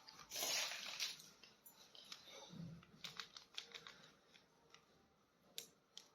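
Faint handling of toy action figures: a short rustle near the start, then scattered light clicks.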